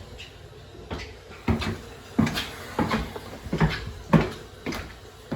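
A run of short knocks and thumps, irregularly spaced at about two a second.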